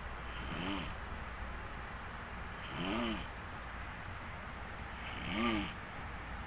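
A person snoring: three snores about two and a half seconds apart, each a rasping drone that rises and then falls in pitch.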